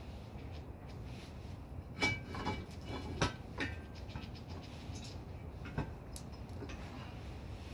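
Metal clinks and knocks from fitting parts to a steel hydraulic shop press frame and its bottle jack: a quick cluster of knocks about two seconds in, one with a short metallic ring, and a single knock near the end.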